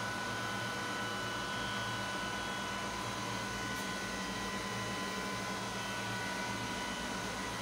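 Cooling fans of a GPU mining rig and electric room fans running steadily: an even hiss of moving air with a steady high-pitched whine.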